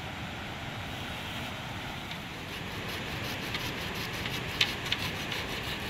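Steady rush of flowing river water, with a few faint knocks and rubs of bamboo being handled from about two seconds in.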